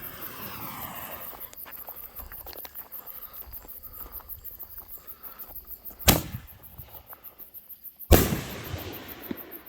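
A 60-gram canister firework shell fired from a mortar tube: a sharp report as the lift charge launches it, then about two seconds later a louder bang with a trailing rumble as the shell bursts overhead.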